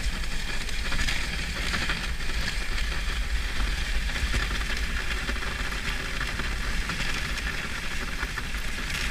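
Steady rushing hiss of a moving dog sled's runners gliding over packed snow, over a constant low rumble, heard muffled through a GoPro's waterproof housing.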